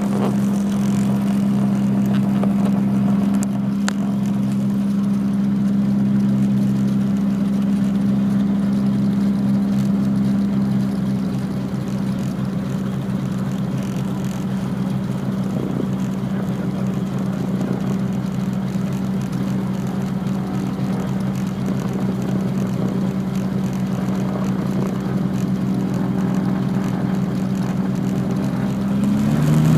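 The Piper Seneca's twin piston engines drone steadily at low power, heard from inside the cabin. Just before the end their pitch and loudness rise as power comes up for takeoff.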